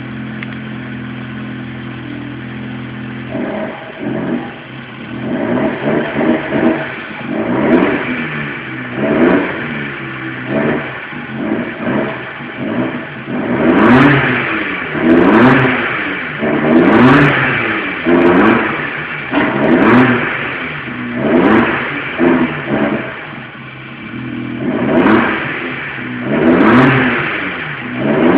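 Fiat Palio Young's 1.0-litre four-cylinder engine, running with its air filter removed. It idles steadily for about three seconds, then is revved over and over in quick blips, each one rising and falling in pitch.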